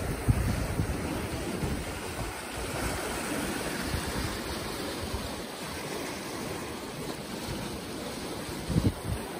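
Sea waves washing over shoreline rocks, with wind buffeting the microphone.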